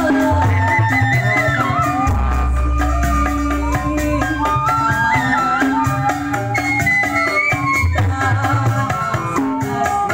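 Gambang kromong ensemble playing a stambul tune live: sliding melody lines over low bass notes, with a steady beat of short high clicks like a shaken rattle.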